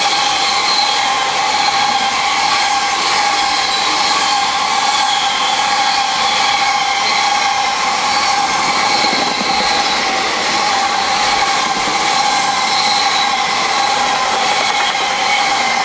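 Container freight wagons running past at speed close by: a loud, steady rush of steel wheels on rail, with a whine of several steady tones over it.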